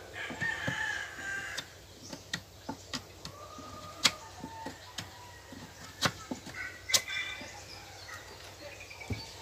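Chickens clucking in the background, several short calls, with a few sharp taps in between.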